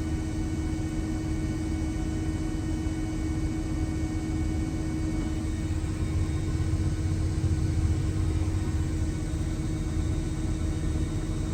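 Combine harvester running steadily at work, heard from inside the cab: a low rumble with a steady hum.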